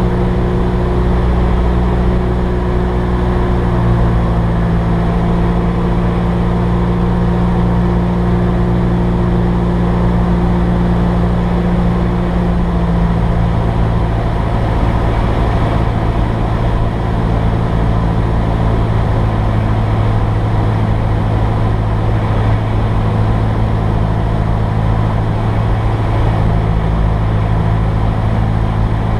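Cessna 172S's four-cylinder Lycoming engine and propeller droning steadily, heard inside the cabin, at reduced power on final approach with the flaps fully down. The engine note shifts a little a few times.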